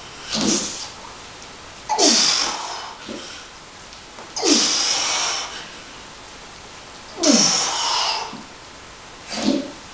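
A lifter's forceful breathing through a set of heavy barbell back squats: five hissing huffs about every two to three seconds. Each one opens with a short voiced note that slides down in pitch.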